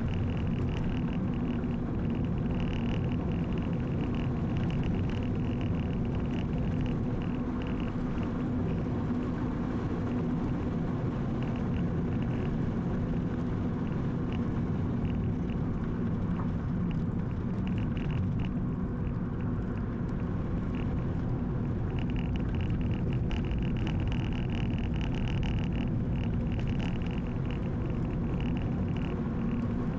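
Car running with steady engine and road noise, without a break.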